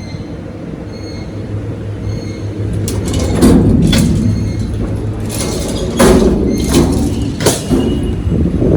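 Music over a steady low hum, with several loud sudden hits from about three seconds in.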